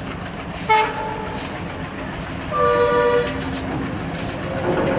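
Diesel locomotive horn sounding twice, a brief toot about a second in and then a louder blast of under a second, over the steady rumble of the approaching train, which grows louder near the end.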